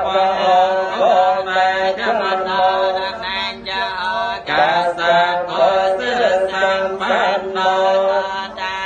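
Theravada Buddhist chanting: a continuous melodic recitation with long held tones that slide up and down, going on without a break.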